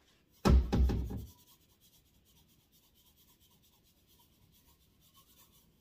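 A short, loud knock with a rattle about half a second in, then faint scattered ticking and sprinkling as seasoning is shaken from a stainless-steel shaker over the slow cooker.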